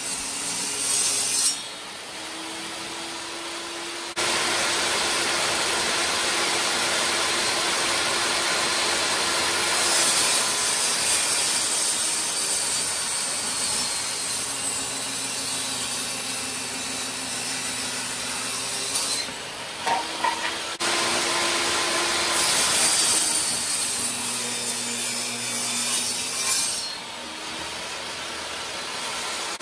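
Benchtop table saw running and cutting through plywood panels: a steady motor and blade whine under the rough noise of the cut. The sound changes abruptly a few times as one cut gives way to the next.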